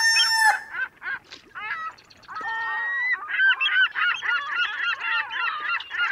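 Birds calling: a long loud call that ends about half a second in, then a flock of many overlapping short calls that grows denser about three and a half seconds in.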